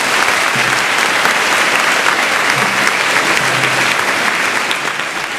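Audience applauding steadily at the close of a speech, the clapping beginning to die down near the end.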